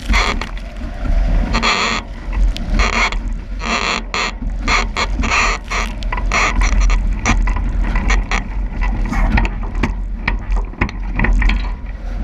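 Strong wind buffeting the microphone in a constant low rumble, with repeated bursts of rushing water and spray and sharp knocks as a Nacra 17 racing catamaran sails through heavy waves.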